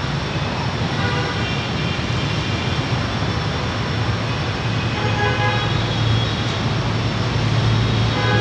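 Steady traffic noise from motorbikes waiting at a level crossing, with a few short horn toots. Near the end, the low engine rumble of an approaching D19E diesel-electric locomotive grows louder.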